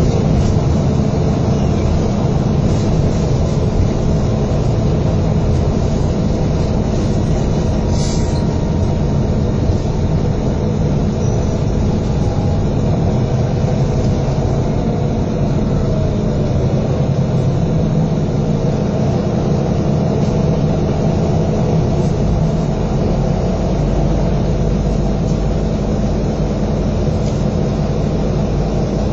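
Engine and road noise inside a moving double-decker bus, East Yorkshire's bus 788: a steady low drone, with a brief high hiss about eight seconds in and the deepest part of the drone growing stronger past the twenty-second mark.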